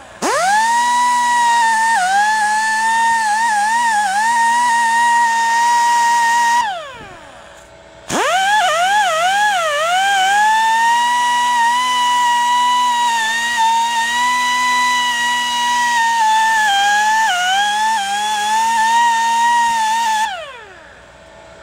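Die grinder spinning a small wire wheel against the steel flange of a differential carrier to clean it. It makes a high steady whine that dips and wavers in pitch as the wheel is pressed onto the metal. It runs twice, winding up at the start, winding down after about seven seconds, winding up again a second later, and winding down near the end.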